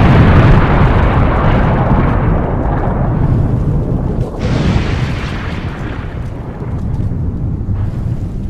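Explosion dying away slowly, with a second blast about four and a half seconds in that also fades.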